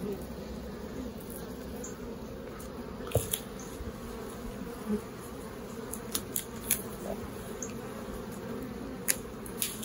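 Many honeybees buzzing in a steady hum over an open hive frame, with a few sharp ticks scattered through it.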